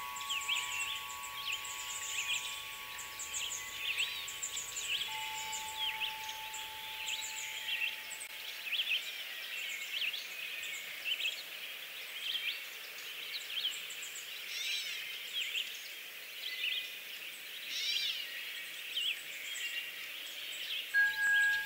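Many small songbirds chirping and trilling in a continuous chorus. Ringing wind-chime tones fade away over the first several seconds, and a new chime rings out near the end.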